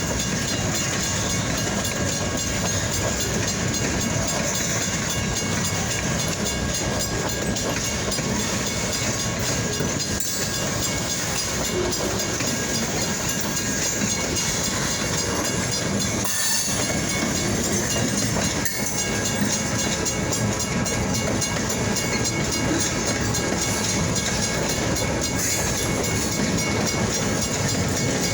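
Freight train rolling steadily past, its cars' wheels clattering over the rail joints with a continuous rumble and hiss.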